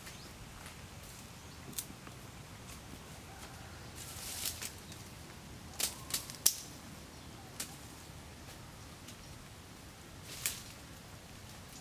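Twigs snapping and dry leaves crackling under someone moving through undergrowth: a handful of sharp snaps, the loudest about six and a half seconds in.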